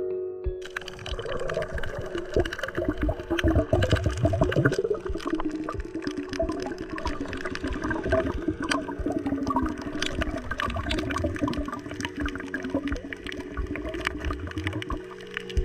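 Underwater water noise heard through a submerged action camera's housing: a rushing, bubbling wash dense with small clicks and crackles, starting about half a second in.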